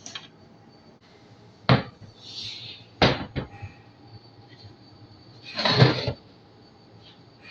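Workshop handling sounds while a torque converter is being worked on: three sharp knocks about two and three seconds in, a short hiss between them, and a longer clatter near the end.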